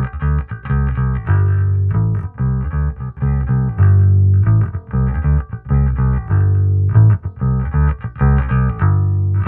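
Electric bass guitar played through a Sherman Efectos 'The Keys' optical compressor pedal: a bass line of short plucked notes broken by several longer held low notes.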